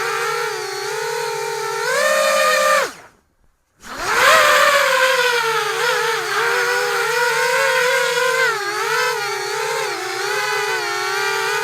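FPV quadcopter's brushless motors whining, the pitch rising and falling with the throttle. About three seconds in they spin down to silence for under a second, then spool back up.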